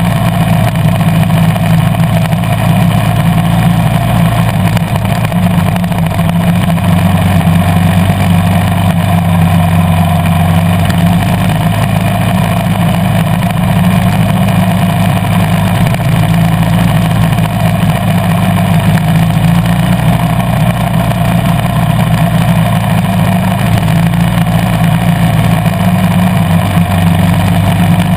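KTM 350 EXC-F dirt bike's single-cylinder four-stroke engine running loud and steady while riding, with only small changes in pitch.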